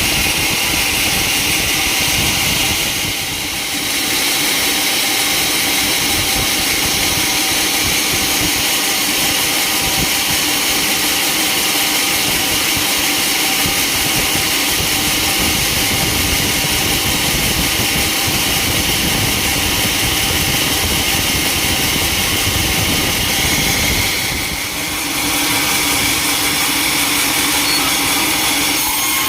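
Sawmill saw machinery running with a loud, steady mechanical hum and hiss. It dips briefly about three seconds in and again near the end.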